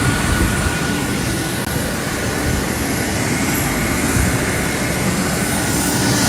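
Jet aircraft engines running loud and steady, a dense rush with a high steady whine on top.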